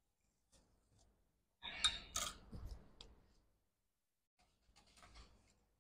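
Faint clicking and handling noises: a short cluster of sharp clicks about two seconds in, and a few quieter clicks near the end.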